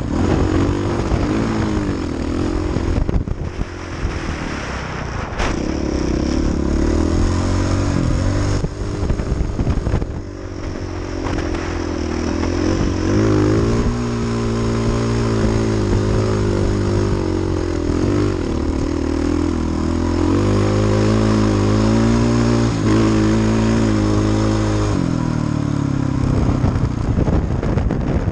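KTM 450 XC-F dirt bike's single-cylinder four-stroke engine being ridden through sand, its pitch rising and falling continually with the throttle. The engine note shifts lower about 25 seconds in.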